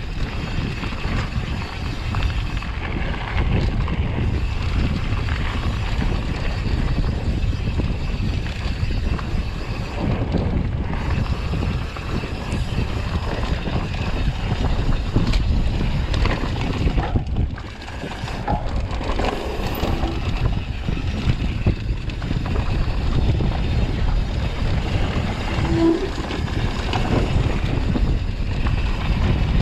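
Wind buffeting the microphone of a camera on a mountain bike descending a bike-park trail, with a steady low rumble from the ride. The sound dips briefly a little past halfway.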